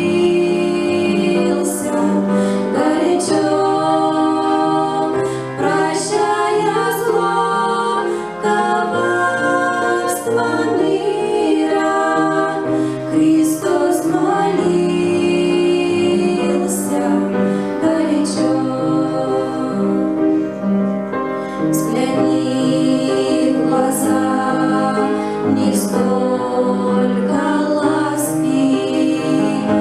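Christian song sung by female voices with instrumental accompaniment and a steady beat.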